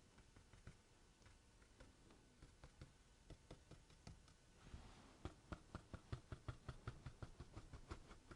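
Faint taps and scratches of a flat watercolour brush dabbing and stroking paint onto textured watercolour paper. Sparse at first, then about four a second from a little past halfway.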